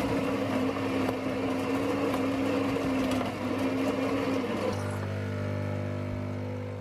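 Espresso machine's pump buzzing steadily while brewing into a cup. It cuts off about two-thirds of the way through, leaving a quieter steady low hum.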